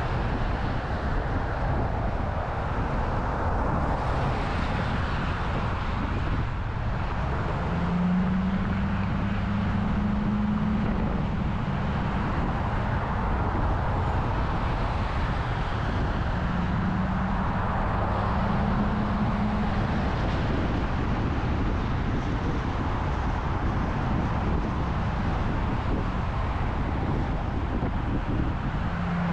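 Steady road noise of a vehicle driving at freeway speed: tyre and wind rumble. A low hum comes in and fades out a few times.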